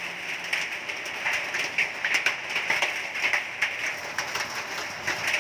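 Hailstones falling and striking hard surfaces: a dense, steady patter of many small impacts, with sharper individual cracks scattered irregularly throughout.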